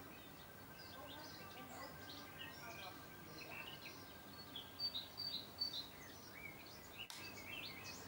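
Songbirds chirping and trilling, many short calls overlapping, with a few louder calls about five seconds in. A single sharp click near the end.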